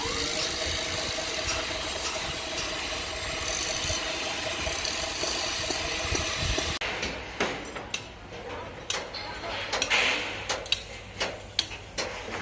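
Steady engine hum with a faint held tone, which cuts off abruptly about seven seconds in to a run of sharp, irregular clicks and knocks from rebar and formwork being handled.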